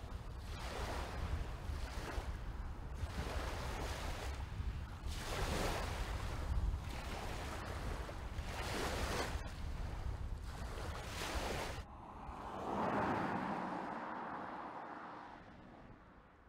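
Wind buffeting the microphone over small waves lapping at a lakeshore, swelling and easing every second or so. About twelve seconds in this cuts to the tyre and road noise of a Mercedes-Benz EQC electric SUV passing, which rises and fades over about three seconds.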